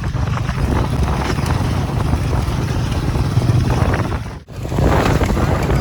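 Motorcycle running over a rough off-road track, its engine rumble mixed with heavy wind noise on the microphone. The sound drops out briefly about four and a half seconds in.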